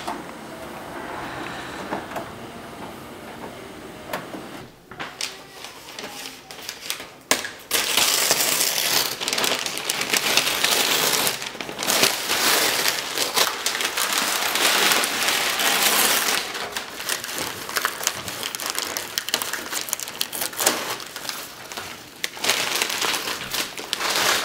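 Newspaper wrapping being pulled off a chrome grille and crumpled: a dense crackling rustle, soft at first, then loud from about seven seconds in until just before the end.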